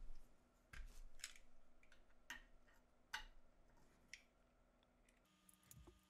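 Faint snips and clicks of a star quad cable being stripped by hand, about five or six separate small ticks spread over the first four seconds.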